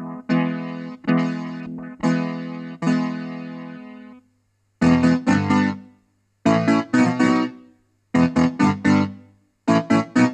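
Farfisa Pergamon analog electronic organ playing its electric-guitar voice: a few chords struck about once a second that ring out and fade, then from about five seconds in four groups of quick, short, repeated strummed-style chords with brief gaps between. A faint steady low hum runs underneath.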